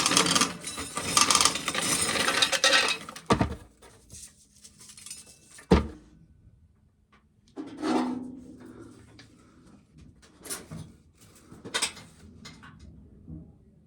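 Dry corn rattling and clattering as ears are shelled, a dense rattle for about three seconds, then a few separate knocks and clinks.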